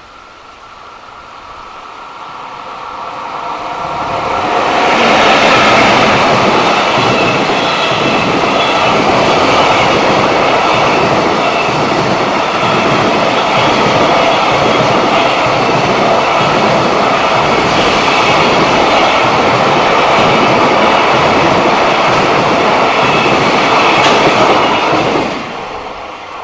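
Freight train passing close on the main line, its wheels clattering steadily over the rail joints. It builds up over the first five seconds or so, runs loud for about twenty seconds, then falls away sharply near the end as the last wagon goes by.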